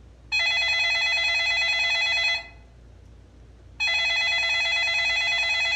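Telephone ringing twice, each ring a steady, trilling tone lasting about two seconds with a short pause between, as an incoming call goes unanswered before the answering machine picks up.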